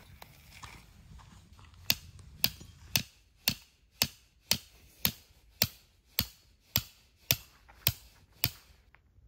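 A red-handled camping hammer striking a tent stake, driving it into gravelly ground. There are thirteen sharp, evenly spaced blows, about two a second, starting about two seconds in.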